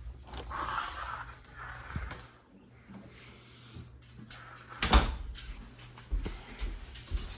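Ceiling fan running with a steady low hum, with scattered knocks and handling noise, the loudest a single sharp knock about five seconds in.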